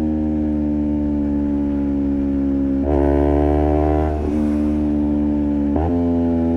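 Honda CBR250RR parallel-twin engine running through a Project 79 slip-on exhaust while riding, with a steady drone whose pitch slowly eases. It gets louder briefly about three seconds in, and the pitch shifts abruptly around three, four and six seconds, as with throttle changes and gear shifts.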